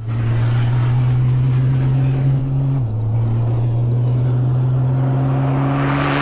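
Volvo VN racing truck's 16-litre diesel engine, tuned to about 1,500 hp, running at steady high revs as the truck drives. The note drops slightly in pitch about three seconds in and then holds steady.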